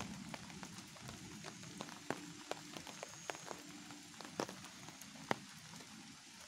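Light rain: a soft steady hiss with many scattered raindrops ticking at irregular intervals, a few of them louder.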